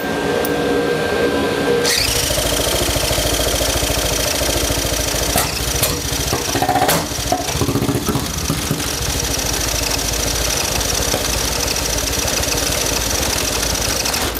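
An electric drill cranking a supercharged 50cc two-stroke engine, starting about two seconds in and running steadily until it cuts off at the end. The engine does not catch, and the builder suspects it is flooded. Under it, an exhaust extraction fan hums steadily.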